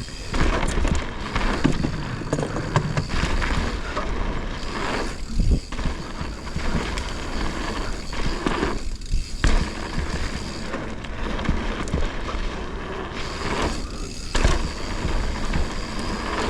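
Mountain bike rolling fast down a dirt bike-park trail: tyre noise over dirt and rock, chain and frame clatter, and wind rumble on the microphone, easing for a moment a few times.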